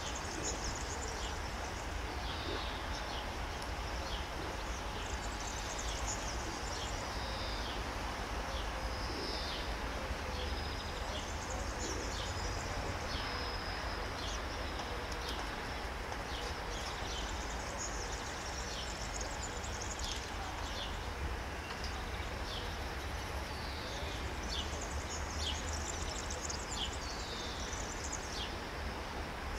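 Songbirds singing, a phrase of quick high falling notes every few seconds, over a steady low rumble of outdoor background noise.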